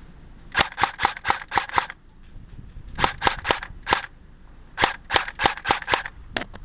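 Airsoft gun firing in three quick strings of sharp shots, about four a second, with one last shot near the end.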